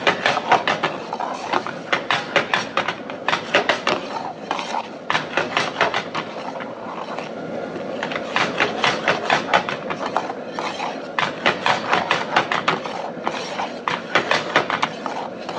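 Large steel ladle scraping and clacking against a metal pan while stirring a thick masala gravy, in quick runs of strokes, several a second, with short pauses between runs.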